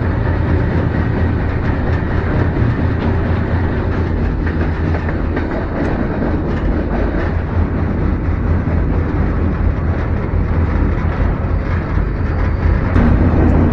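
Freight train running along the track: a steady, loud low rumble.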